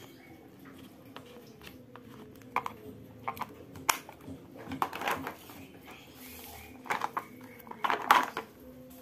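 Clicks and clacks of a clear hard-plastic oil pastel case being handled, its lid knocking and snapping shut. Near the end comes a louder cluster of rustling and clatter as a plastic-wrapped set is picked up.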